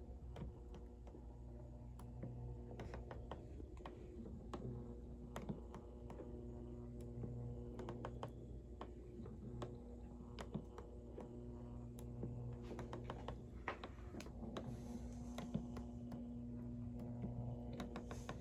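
Quiet electric motor and gear mechanism of an animated Christmas figure running, a steady low hum with irregular light clicking and ticking from the moving parts.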